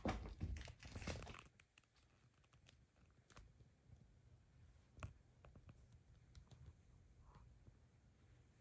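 A cat pawing and scratching for about a second and a half, then a few faint scattered taps and clicks in near silence.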